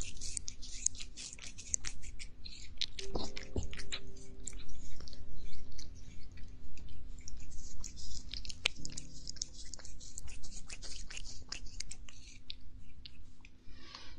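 A cat eating, with rapid, irregular crisp crunching and clicking of chewing close to the microphone.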